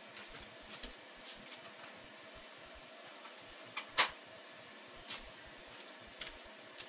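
Steady fan-like room hum with a few faint clicks and knocks of things being handled, and one sharper knock about four seconds in.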